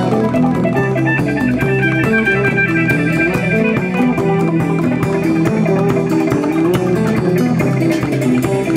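Band playing an improvised instrumental jam: busy plucked guitar notes over a steady bass line, with drums and percussion ticking throughout.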